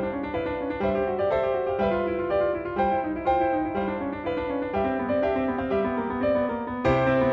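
Background music: piano playing a steady pattern of struck notes.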